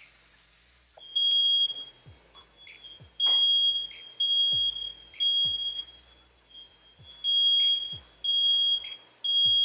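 Smoke alarm going off in a run of loud, high-pitched beeps about half a second long, set off by smoke from a steak searing in a pan, with low thumps among the beeps.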